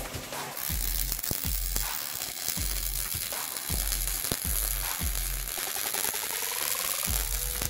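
MIG welder arc crackling and sizzling steadily as a bead is run on steel plate, starting about half a second in.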